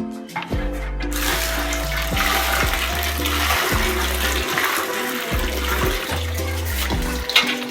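Water rushing and splashing for several seconds over background music with a steady bass line.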